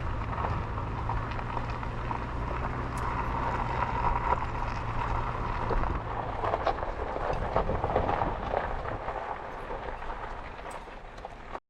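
Toyota 4Runner driven slowly over a rocky dirt road: low engine hum with tyres crunching over gravel and stones. The engine note drops away about two-thirds through and the sound fades before cutting off suddenly at the end.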